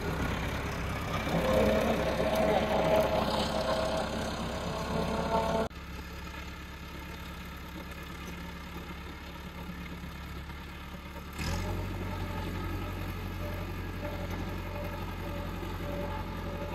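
Massey Ferguson 385 tractor's diesel engine running as it pulls a digger through the field. It is loud and close at first. About six seconds in it drops suddenly to a fainter, more distant engine sound, and a steady low hum comes in about two-thirds of the way through.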